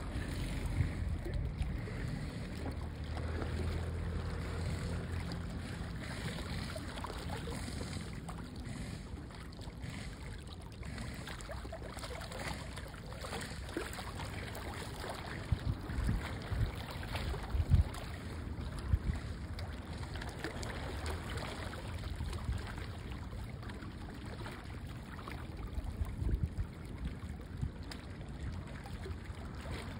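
Low, steady rumble of a boat motor, with a few sudden thumps around the middle and again near the end.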